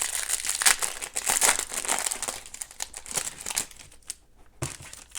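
A hockey trading-card pack's wrapper being torn open and crinkled in the hands: dense crinkling for about three and a half seconds, then quieter handling with a soft knock near the end.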